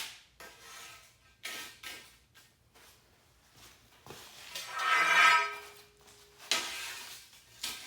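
Pieces of 3/16-inch steel angle being handled and set down, clanking several times; the loudest clang, about five seconds in, rings on briefly.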